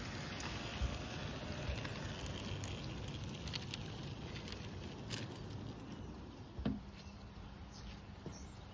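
Garden-railway train's wheels rattling and clicking along the track, heard close up from a camera riding on the train. One louder knock about two-thirds through, after which it goes quieter.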